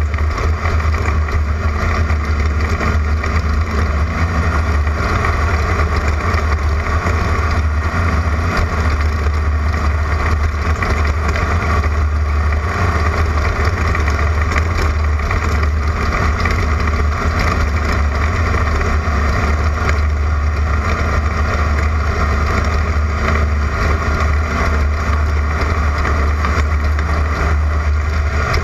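Class 11 stock VW Beetle desert race car running at speed: its air-cooled flat-four engine makes a steady, continuous drone over a heavy low rumble.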